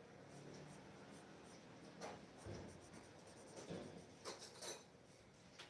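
Coloured pencil scratching on drawing paper in a run of short, faint strokes.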